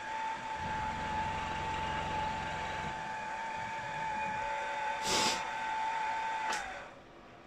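Milling machine spindle running with a steady whine while a cutter takes a light skim off a small brass part, with a lower rumble for the first few seconds. A short hiss comes about five seconds in, then a click as the machine is switched off and the whine drops away.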